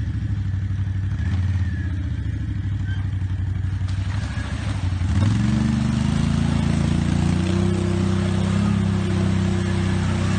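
Four-wheeler ATV engine running at low revs, then revved up about five seconds in and held higher, the wheels churning through muddy water.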